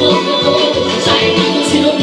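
Live bar-band music played through a small PA: a woman singing over electric guitar with a steady beat.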